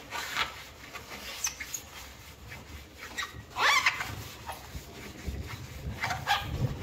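Paper towel rubbing and buffing the painted bed of a Singer Featherweight sewing machine, an irregular swishing with a short rising squeak about halfway through.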